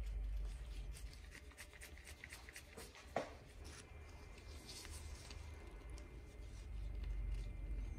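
Faint handling noises: scattered light clicks and scrapes over a low hum, with one sharper knock about three seconds in.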